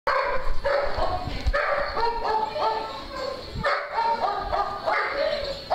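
A dog giving short, high-pitched whining yips over and over, about two a second, some sliding up or down in pitch.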